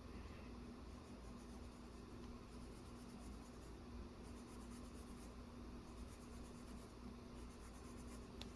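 Faint scratching of a coloured pencil shading on paper, with a steady low hum underneath.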